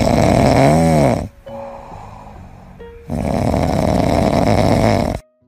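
French bulldog puppy snoring loudly in its sleep: two long snores with a quieter breath between them, the first bending up and back down in pitch near its end.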